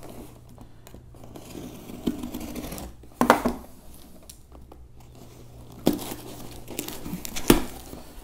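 Packing tape on a cardboard shipping box being slit with a utility knife and torn away, and the cardboard flaps pulled open. Sharp rips come about three seconds in, around six seconds, and just before the end.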